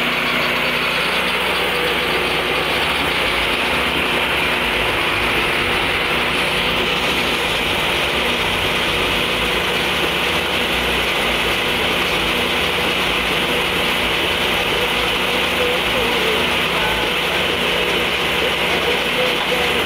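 Lucas Mill swing-blade sawmill running steadily, its engine and circular saw blade cutting along a log as the carriage is pushed down the rails.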